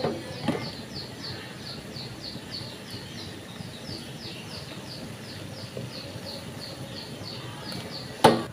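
A small bird chirping rapidly and over and over, about three short high chirps a second, each sliding down in pitch, over a low steady background noise. One sharp clank comes near the end.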